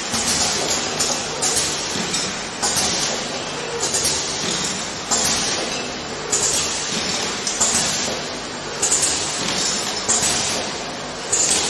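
Automatic essential-oil filling and capping machine running: a steady mechanical clatter with a short sharp hiss about every second and a quarter, the exhaust of its pneumatic cylinders as the line cycles.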